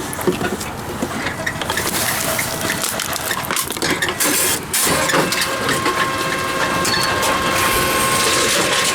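Plastic-bottle reverse vending machine taking in a bottle: irregular rattling and clattering, then from about five seconds in a steady motor hum with a high, even whine.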